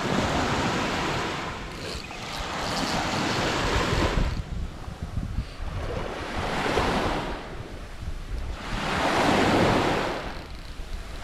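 Sea waves washing in, swelling and fading four times about three seconds apart, with some wind on the microphone.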